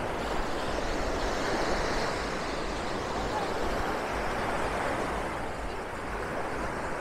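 Small Caribbean waves breaking and washing up the sandy shore, the surf swelling and easing every few seconds, with a low rumble of wind on the microphone.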